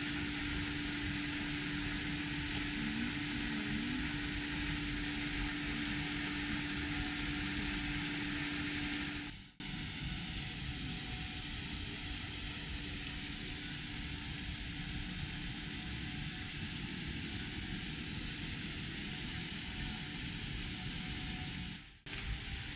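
Steady rushing background noise, with a steady low hum through the first part. The sound drops out abruptly twice, at cuts between shots.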